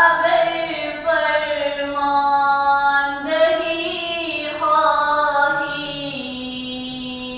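A solo voice singing a devotional ginan unaccompanied, in long drawn-out melodic phrases; near the end it settles onto a lower held note.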